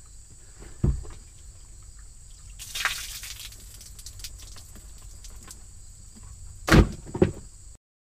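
Water pouring and splashing out of a waterlogged rubber boot as it is tipped up and emptied, with a thud about a second in and two louder thuds near the end. A steady high insect drone runs underneath, and everything cuts off suddenly just before the end.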